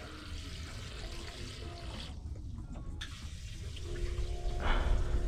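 Water sloshing and running, with a low rumble underneath; a steady hum joins about four seconds in.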